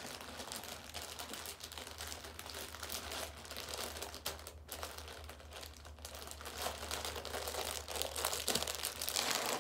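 Packaging crinkling and rustling as hands unwrap a folded wall flag, with irregular crackles throughout, over a steady low hum.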